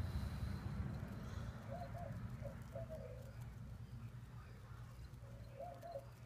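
A dove cooing: a short phrase of three low coos, heard twice about four seconds apart, the second near the end. Under it runs a steady low rumble.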